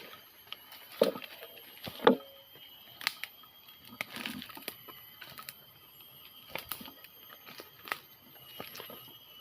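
Footsteps crunching and rustling through dry leaf litter and undergrowth, irregular steps roughly a second apart with a few pauses.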